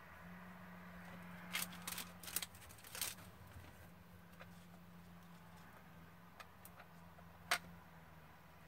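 Paper rustling and crinkling as small pieces of paper are handled and pressed down by hand, with a few short sharp crinkles around one and a half to three seconds in and one more near the end. Under it runs a steady low hum from a lawnmower running outside.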